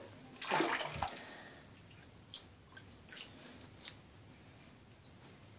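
Faint water sounds from a filled bathtub with a bath bomb dissolving in it: a short swish about half a second in, then a few small ticks.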